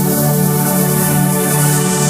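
Background electronic music with sustained synthesizer chords.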